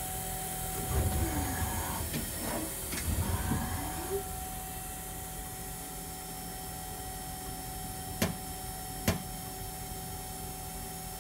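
1999 Super Kia Turn SKT-21V CNC lathe running its programmed cycle over a steady machine hum. In the first few seconds, motor whines fall and rise in pitch as the tool turret moves and indexes. About two-thirds of the way in come two sharp clacks a second apart.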